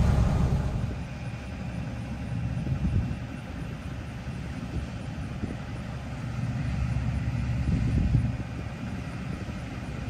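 Low rumble of a running grain truck's diesel engine, rising and falling in loudness, swelling about three seconds in and again near eight seconds.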